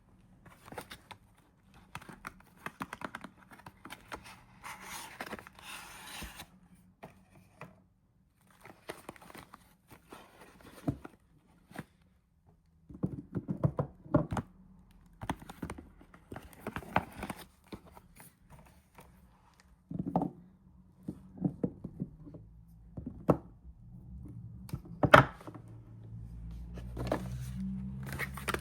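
Soap bars being unwrapped and handled: wrapper paper or plastic tearing and crinkling, with scattered taps, clicks and dull thunks as bars and packaging are set down, and one sharp click near the end.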